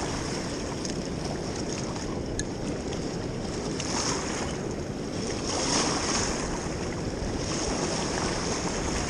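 Steady rush of flowing river water, with some wind on the microphone.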